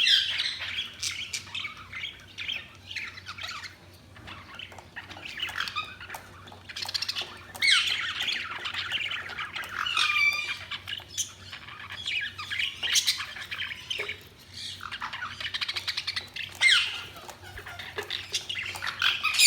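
Budgies (budgerigars) chirping and warbling: quick chattering calls with sharper squawks, coming in louder bouts every few seconds.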